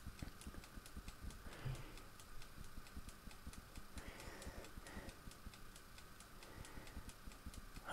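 Faint, fast, even ticking, like a small clockwork mechanism, with a soft knock about one and a half seconds in.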